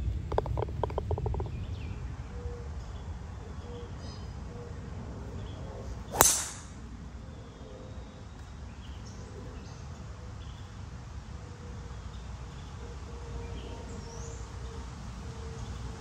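A putted golf ball dropping into the cup with a short rattle near the start. About six seconds in, a driver strikes a golf ball off the tee with one loud, sharp crack that dies away within half a second, over a low steady rumble.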